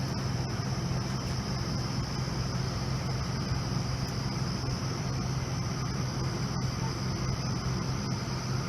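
A steady low mechanical hum under a continuous high chirring of crickets. No alarm pulses and no single events stand out.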